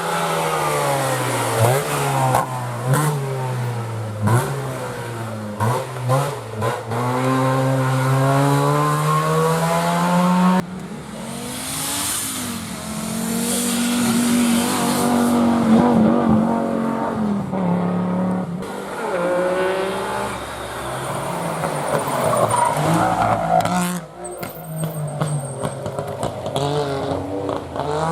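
Rally car engines revving hard, their pitch climbing and dropping again and again through the gears as the cars accelerate. Several cars follow one another, with abrupt changes from one to the next.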